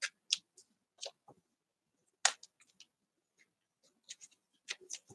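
Scattered soft rustles, taps and clicks of hands handling paper and art-journal supplies, with one sharper click about two seconds in.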